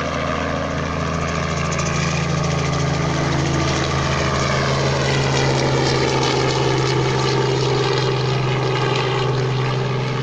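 A small light helicopter flying past just after take-off. Its engine and rotor give a steady drone with a rapid beating of the blades, and the pitch drops a little about halfway through.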